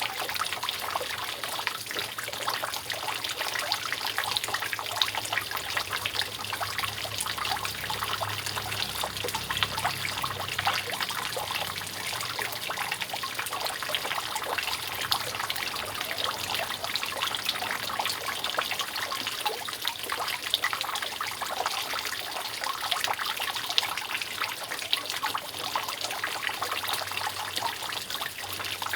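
Water dripping and trickling steadily from a roof leak, a dense run of small drips and splashes.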